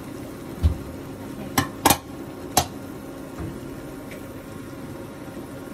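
Kitchen clatter at the stove: a low knock, then three sharp clinks of utensils against a pot, over a steady low hum.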